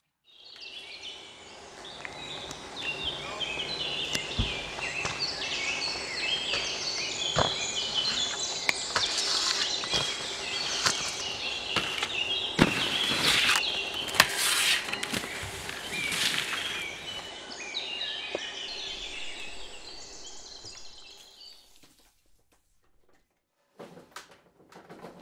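A dense chorus of small birds chirping and twittering, with several sharp knocks among it. It fades out a few seconds before the end.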